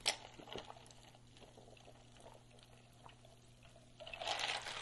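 A man drinking from a large paper cup: a click as it meets his lips, a few faint swallows, then a soft liquid, breathy rush near the end.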